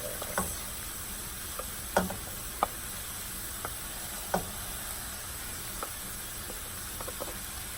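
Stir-fry sizzling in a hot oiled pan as cauliflower rice is poured in, with occasional sharp taps scattered through it.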